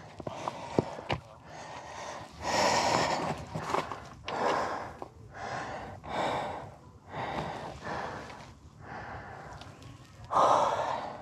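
A hiker breathing hard and fast from the exertion of a steep rock scramble, with a loud breath about every second.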